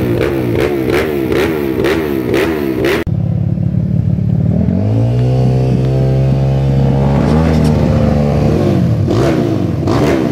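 Air-cooled four-stroke dirt bike engine being revved: quick repeated throttle blips for the first three seconds. After an abrupt change it runs steadily, is raised to a higher held rev about five seconds in, drops back near the end, and then is blipped again.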